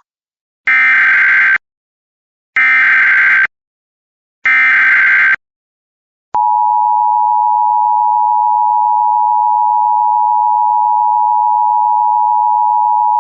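Emergency Alert System tones. First come three one-second bursts of SAME digital header data, about a second apart, which encode the alert's event code and area. About six seconds in, the steady two-tone EAS attention signal (853 and 960 Hz together) starts and holds.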